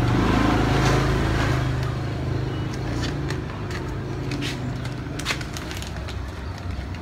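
A steady low hum that swells over the first second and a half, with scattered sharp crinkles from newspaper being pressed and torn onto a whole pig's skin.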